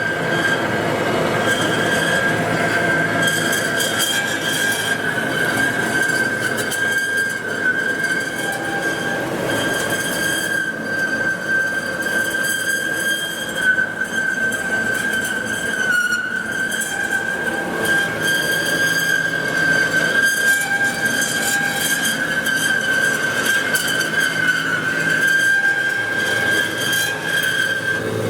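Marvel Mark II vertical bandsaw running, with a steady high-pitched whine over a mechanical rumble.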